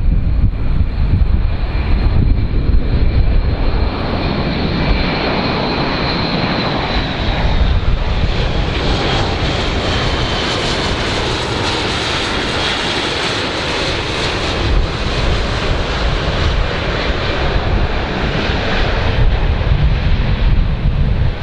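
Airplane engine noise: a loud, steady rumble with a high whine that sinks slightly in pitch partway through, while a hiss swells through the middle.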